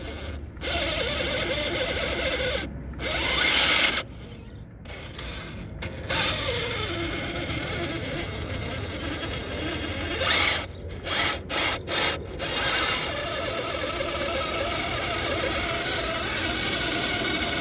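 Electric RC truck's motor and gear drivetrain whining as it climbs, with louder surges of throttle and a falling whine as it eases off.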